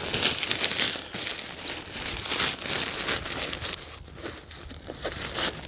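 Tent flysheet fabric rustling and crinkling as the door panel is lifted and rolled up, in repeated bursts that are louder for the first couple of seconds, then softer.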